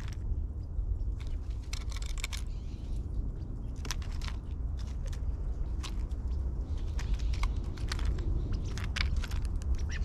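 Black-billed magpie pecking and picking through peanuts and seed on a wooden tray feeder: an irregular run of sharp taps and crunches over a steady low rumble.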